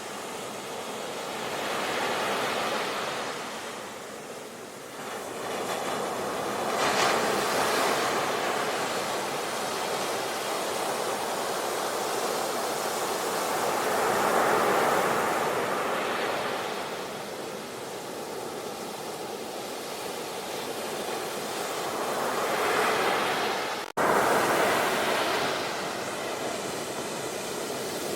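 Ocean waves breaking and washing on a shore, a rushing noise that swells and eases every several seconds. Near the end the sound cuts out for an instant and comes back louder.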